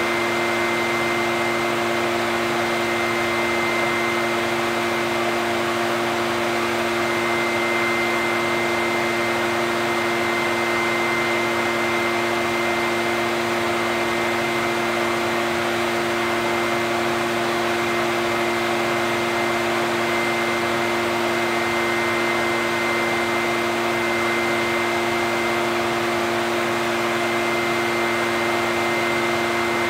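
Echo backpack leaf blower's two-stroke engine and fan running at a constant speed, a steady whine with no change in pitch.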